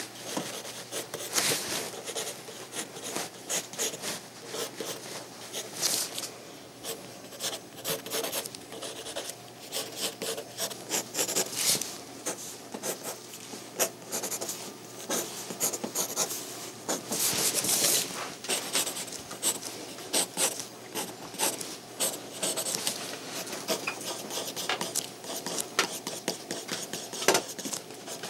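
Pencil drawing on paper: many quick, irregular scratching strokes as lines are sketched in.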